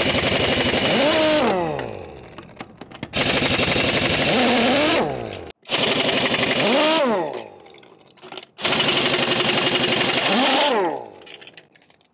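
Ingersoll Rand 1-inch pneumatic impact wrench hammering semi-truck lug nuts loose in four bursts of about two seconds each. At the end of each burst the freed nut lets the motor spin up, then its pitch falls away as the trigger is let go.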